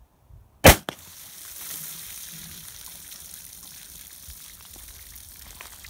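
A single 44 Magnum revolver shot, a Buffalo Bore 340-grain +P+ load fired from a Ruger Redhawk Kodiak Backpacker. It is followed at once by water running steadily out of the water jugs the bullet has punched through.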